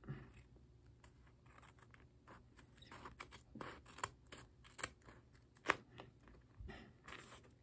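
Scissors snipping through layers of tape: a run of faint, irregular snips, sparse at first and more frequent from about two and a half seconds in, with one sharper snip near the six-second mark.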